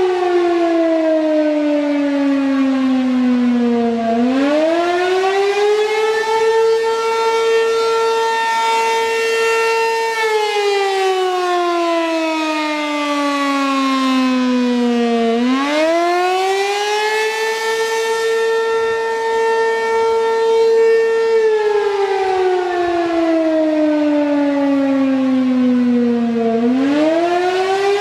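American Signal RM-127 outdoor warning siren sounding the wailing attack signal. Its loud tone falls slowly over several seconds, sweeps quickly back up, holds high for a few seconds, then falls again. The cycle repeats about every eleven seconds, rising three times.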